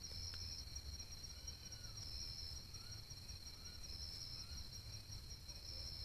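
Night insect chorus: crickets or katydids trilling steadily at a high pitch, one strand swelling louder about every two seconds. A few faint short chirps and a single tick come through, over a low steady rumble.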